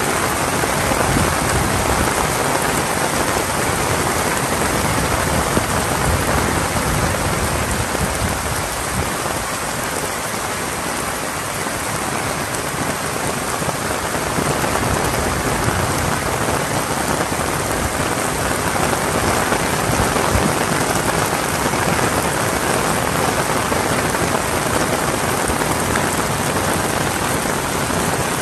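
Heavy rain falling steadily, a dense even hiss of drops striking surfaces.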